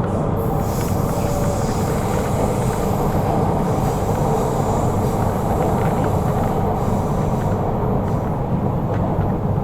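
MTR K-Train electric multiple unit running at speed between stations, a steady rumble of wheels and running gear. A higher hiss of wheel and rail noise rides over it from just after the start and fades away about seven seconds in.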